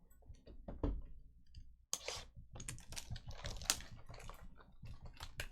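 Rapid, irregular clicking and crinkling from hands handling trading card boxes and packs, thickening about two seconds in.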